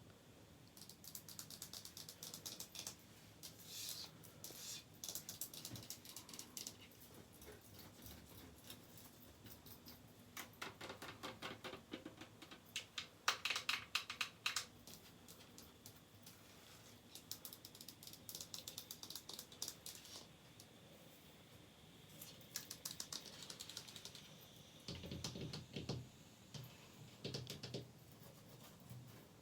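Fast ASMR tapping and scratching on bathroom surfaces: quick runs of crisp clicks with short pauses between them, the busiest run about halfway through.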